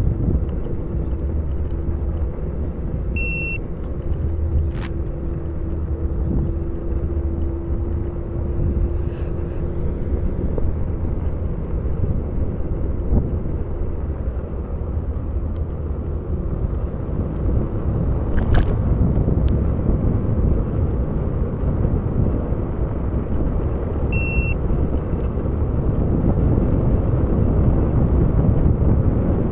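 Steady low rumble of riding along a trail, with a steady hum through roughly the first ten seconds. Two short high electronic beeps, about three seconds in and again about 24 seconds in.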